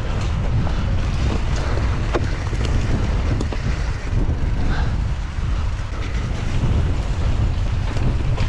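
Wind buffeting an action camera's microphone during a hardtail mountain bike descent, over a steady low rumble of tyres on rough dirt, with scattered sharp clicks and clacks from the bike jolting over bumps.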